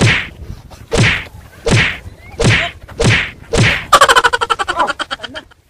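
Blows in a staged comic fight: six loud whacks about two-thirds of a second apart, then a fast rattling flurry of hits with a buzzing tone for about a second and a half.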